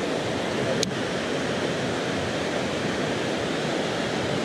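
Creek rapids rushing steadily, water pouring over rocks in a shallow riffle, with a single short click about a second in.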